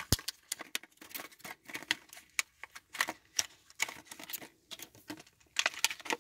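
Plastic packaging crackling and clicking in irregular sharp snaps as a packet of brass air-line compression fittings is handled and opened.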